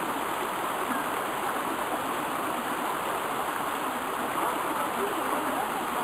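Steady rush of the Dzhur-Dzhur waterfall's stream pouring over rock ledges into shallow pools.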